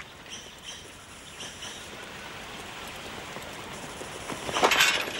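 Outdoor rural ambience: a steady hiss with a few faint, high bird chirps in the first two seconds, then a louder noisy burst near the end.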